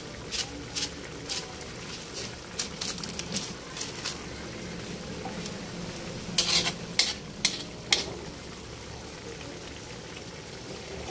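Chicken and carrot stew simmering and sizzling in a wok, a steady crackle of small pops from the bubbling broth. A metal ladle stirs through it, with a few louder clinks against the wok about six to eight seconds in.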